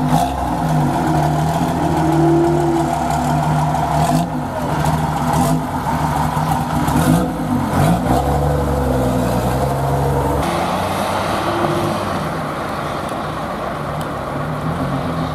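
Foden lorry's two-stroke diesel engine pulling away under load, its pitch rising and dropping several times as it is revved.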